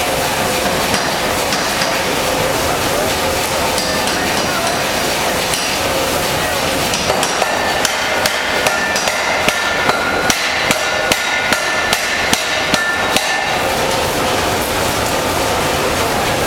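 A 5 cwt Massey power hammer forging a white-hot lump of reclaimed puddled wrought iron. About halfway through it strikes a fast, even series of blows, about two or three a second, over steady background noise.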